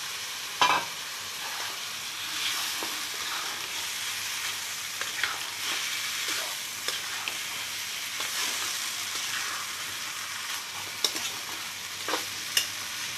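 Beef pieces sizzling in hot oil and spice paste in a nonstick wok while a spatula stirs and scrapes them, braising the meat in the masala. A steady sizzle runs under scattered clicks of the spatula against the pan, the sharpest about half a second in.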